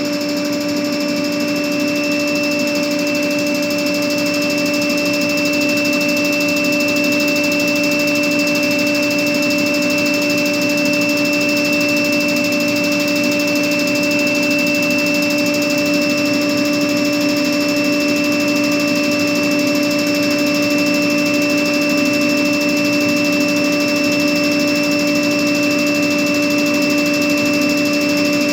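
Industrial screw air compressor running steadily: a loud, even machine drone with a constant whine.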